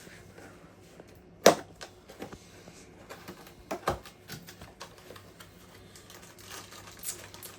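A cardboard box being opened and its packaging handled: scattered clicks and taps, the loudest about one and a half seconds in, with a soft rustle near the end.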